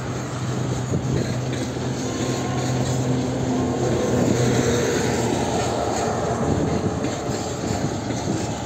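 Long freight train of open gondola wagons rolling past, a steady rumble of wheels on the rails that swells a little around the middle.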